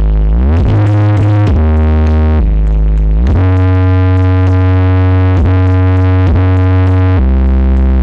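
Loud electronic dance music with a deep synthesizer bass holding long notes that slide up and down between pitches, played through a sound horeg rig's large subwoofer boxes.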